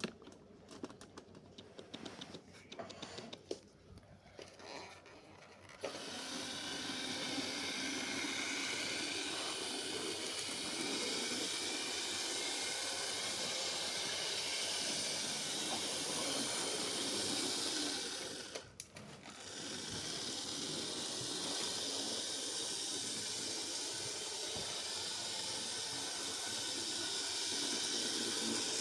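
Faint small clicks, then about six seconds in a model train starts running on its track, giving a steady whirring and rolling noise. The noise cuts out briefly about two-thirds of the way through and then resumes.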